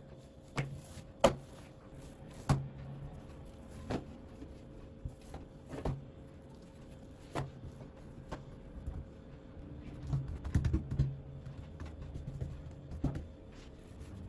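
Hands turning over and pressing out a large sheet of layered yeast dough on a wooden table: a scattered series of soft slaps and taps, the sharpest about a second in and several close together about two-thirds of the way through.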